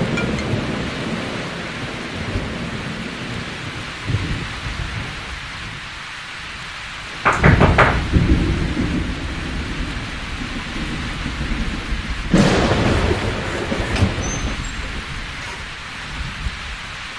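Steady rain with two loud claps of thunder, the first about seven seconds in and the second about twelve seconds in, each a sudden crack that rumbles away.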